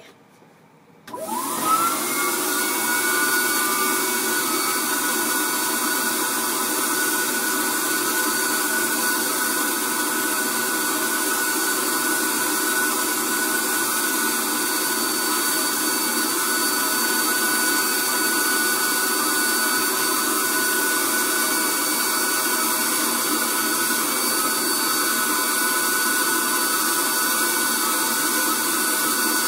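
Spray tan machine switched on about a second in, its blower winding up in pitch, then running steadily with a whine and a strong rushing hiss from the spray gun.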